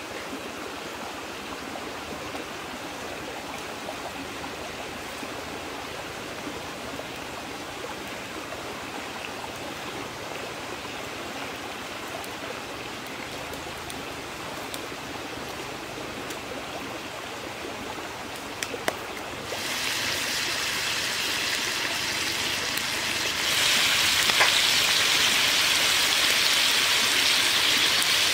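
Chicken legs frying in oil in a wok over a wood fire: a steady hiss that steps louder about two-thirds of the way in and becomes a loud, bright sizzle for the last few seconds. A couple of sharp clicks come just before the first step.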